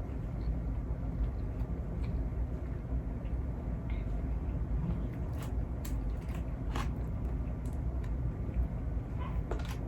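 Chewing and eating seafood, with a few sharp clicks, over a steady low hum.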